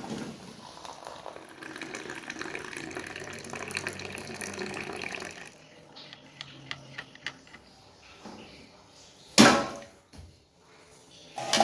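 Water running from a kitchen tap for about five seconds, then stopping, followed by a few light clicks and a loud sharp knock, with another knock near the end.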